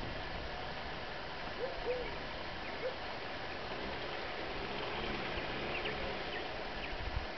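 Night-time rural outdoor ambience: a steady hiss, with a few short animal calls and faint high chirps over it. There are low thumps near the end.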